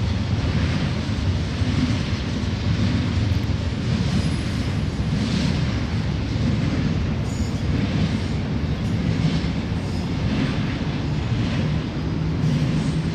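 Union Pacific double-stack container freight train passing at track speed: a steady, loud rumble of the train rolling by, with a low hum throughout.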